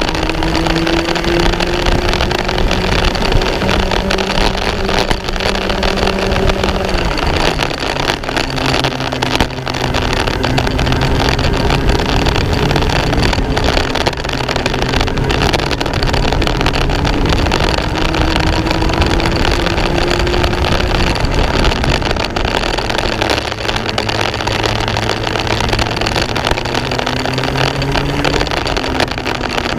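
Racing kart engine under full throttle. Its pitch climbs steadily along each straight and drops sharply when the driver lifts for a corner, three times: about seven seconds in, about twenty-one seconds in and near the end.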